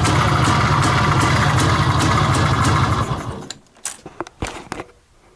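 IZh Planeta 5 motorcycle's single-cylinder two-stroke engine running steadily, then shut off about three seconds in and dying away within half a second. A few sharp clicks and knocks follow.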